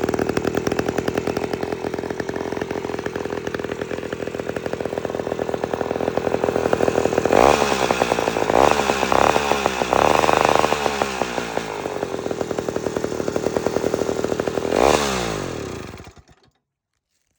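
A 1958 Wright gas-powered reciprocating saw's small engine running and revving up several times in a row. It gives one last rev and then shuts off, the running dying away near the end.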